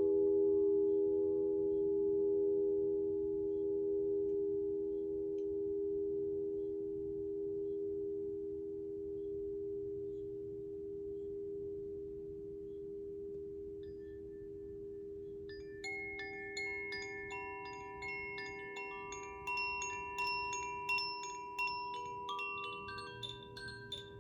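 Alchemical crystal singing bowls ringing with a few steady, slowly fading tones, one of them pulsing gently. About two-thirds of the way through, Koshi chimes join in with a shower of bright, tinkling notes that ring on over the bowls.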